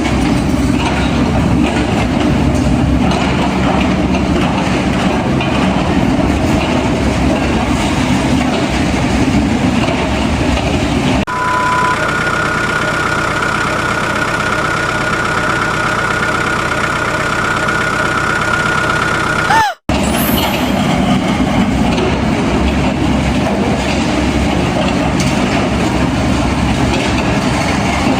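Heavy machinery engine noise, as of an excavator and truck working, running steadily. About eleven seconds in it gives way to a lower hum with a steady high whine, which ends in a brief falling tone and a short break just before twenty seconds. The engine noise then returns.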